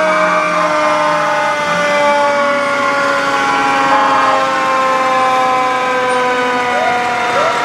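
Several emergency vehicle sirens sounding at once, the main tone slowly falling in pitch as it winds down, with a couple of short rising whoops near the end.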